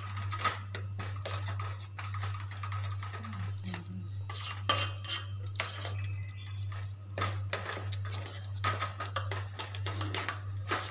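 Steel spoon stirring thickened phirni in a stainless steel pan, scraping and clinking against the pan in quick, irregular strokes as ground dry fruits are mixed in.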